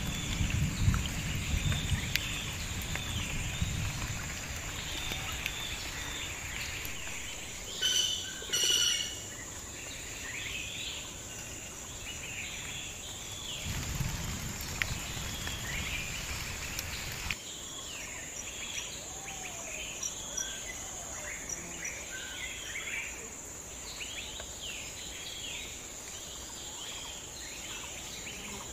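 Riverside forest ambience: many small birds chirping over a steady high insect drone, with two loud pitched calls about eight seconds in and a low rumble at the start and again around fourteen seconds.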